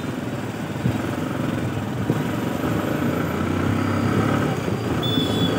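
Motorcycle engine running while riding along a city road, with road and traffic noise.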